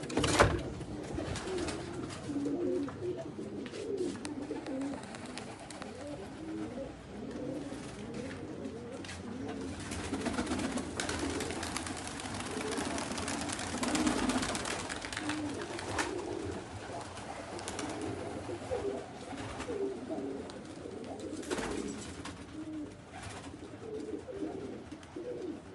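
Many domestic pigeons cooing at once, overlapping, with a sharp knock about half a second in and a few fainter clicks later.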